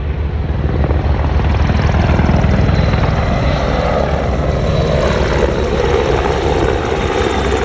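Large military helicopter flying low overhead: steady, loud, fast rotor beat with a faint turbine whine, the pitch sliding gently down in the second half as it passes by.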